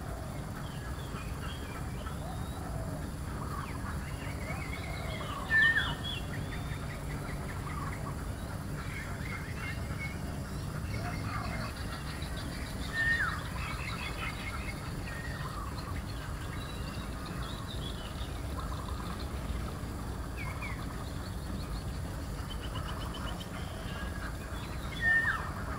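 Several birds calling and chirping on and off over a steady low background hum, with a louder falling call about five seconds in, again about halfway through, and once more near the end.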